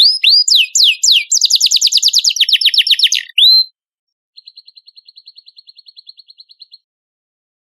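Canary singing: fast, loud trills of down-slurred whistled notes, ending a little over three and a half seconds in. After a short pause, a quieter, even, rapid trill of about a dozen notes a second runs for about two seconds.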